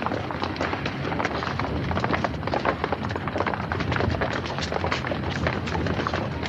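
Footsteps of a large group of about thirty people walking down cement stairs: a dense, continuous jumble of overlapping shoe scuffs and knocks on concrete.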